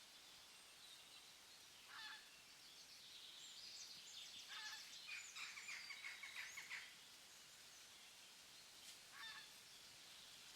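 Wild birds calling faintly over quiet forest ambience: a short call about two seconds in, a burst of rapid repeated chattering notes in the middle, and another short call near the end.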